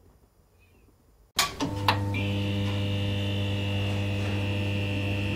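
Neon-sign buzz sound effect: after near silence, an electrical hum switches on abruptly about a second and a half in with a few flicker clicks, then holds steady.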